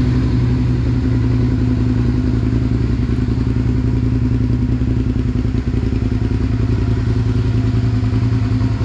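2008 Suzuki SV650's 645 cc V-twin idling steadily through an M4 slip-on exhaust, moments after firing up; the owner calls it excellent running condition.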